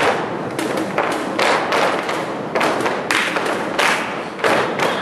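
Flamenco dancers' footwork, heels and soles stamping on the stage floor in quick groups of sharp strikes, with handclaps among them.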